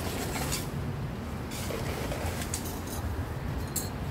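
Steady low rumble of street traffic and market bustle, with a few short metallic clinks from glasses, spoons and a cocktail shaker being handled at a drinks counter.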